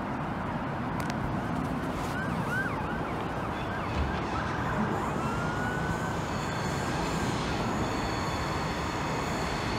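Steady background rumble of town traffic and wind, with a faint distant siren rising and falling through the middle.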